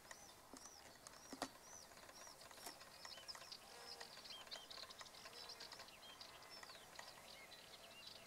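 Faint wing buzzing of a Megachile bee on an orchid flower. Small birds chirp over it in short, high, arched notes repeated a few times a second, with a few soft clicks.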